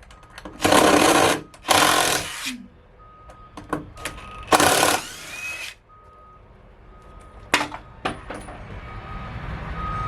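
A power tool run in three short bursts of about a second each, followed by a few sharp clicks. A vehicle's reversing beeps sound faintly in between.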